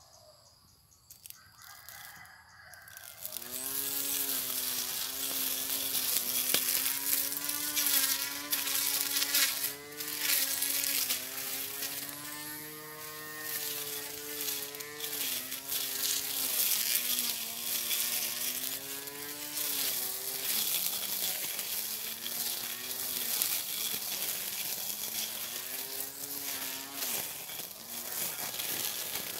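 Portable cordless electric grass cutter starting about three seconds in and running with a high buzzing whine over a hiss, cutting grass. Its pitch sags and recovers several times as the load on the motor changes.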